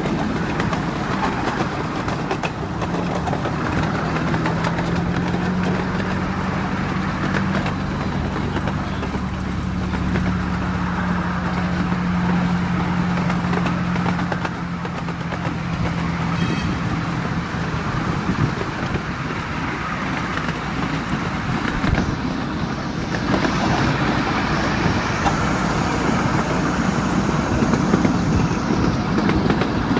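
7¼-inch gauge miniature railway train in motion: the wheels rolling and rattling over the rails, heard from a riding carriage. A steady low hum runs through the first half.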